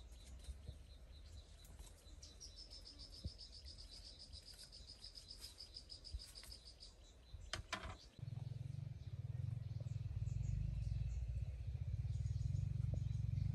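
Quiet riverside ambience with a high, rapid trill lasting a few seconds, typical of a bird or insect calling. A couple of sharp knocks come about two-thirds of the way through, then a steady low rumble takes over, louder than anything before it.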